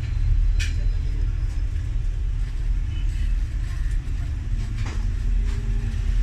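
Steady low rumble with a few sharp clicks, one shortly after the start and two near the end.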